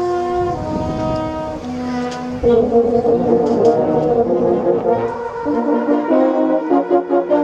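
Brass band playing a tune. Held chords give way about two and a half seconds in to a louder, busier passage, with short detached notes near the end.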